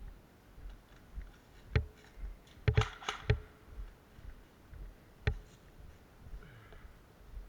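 Airsoft guns firing in an indoor close-quarters game: a single sharp crack, then a quick string of about five in under a second, then another single crack.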